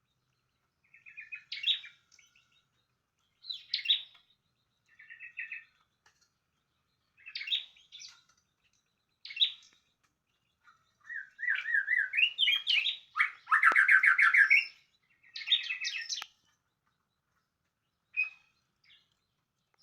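Small songbird singing: short high chirping phrases every second or two, then a longer run of fast trills and warbles lasting about five seconds in the middle, followed by a few scattered notes.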